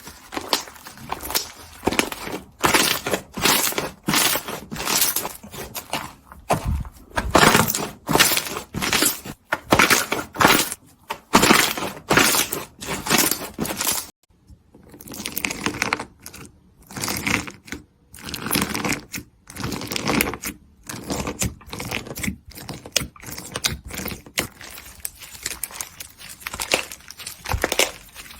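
Slime being squeezed and pressed by hand: a rapid run of sharp crackling and popping bursts, broken by a sudden cut to silence about halfway through.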